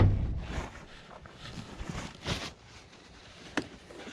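Handling noises: a few brief rustles and one sharp click about three and a half seconds in, after a low rumble that dies away in the first half second.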